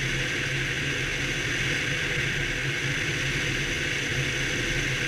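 Piper PA-28-161 Warrior II's four-cylinder Lycoming engine and propeller running steadily in flight, an even low drone under a constant rush of airflow hiss.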